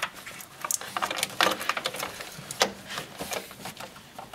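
Plastic wiring connectors and wire being handled by hand, with irregular clicks and rustling, about four sharper clicks among them, as the headlight harness plug is brought to an HID ballast to be connected.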